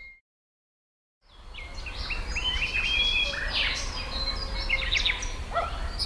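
Countryside ambience of several songbirds chirping and whistling over a low background rumble. It fades out at the start, falls silent for about a second, then fades back in.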